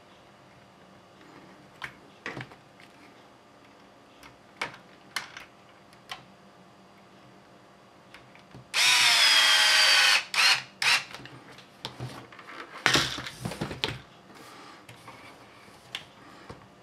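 Cordless drill-driver with a hex bit running for about a second as it drives a shock-mount screw: a steady motor whine that sags slightly in pitch. Scattered light clicks and knocks come before and after it, and a shorter, rougher burst of noise follows a few seconds later.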